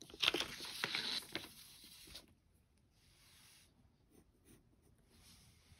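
A sheet of paper rustling and sliding over the drawing paper for about two seconds, with a few sharp scraping strokes, then two faint, soft brushes of paper later on.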